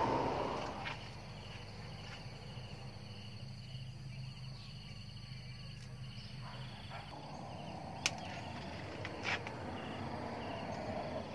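Quiet rural outdoor ambience with insects chirping faintly and steadily. Two sharp clicks sound about eight and nine seconds in.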